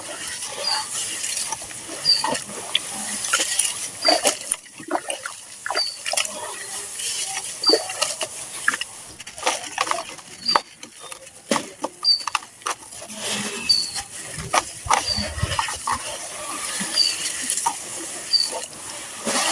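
Gritty charcoal and sand-cement chunks being crushed and crumbled in water, giving irregular wet crunching and crackling with sharp snaps scattered throughout.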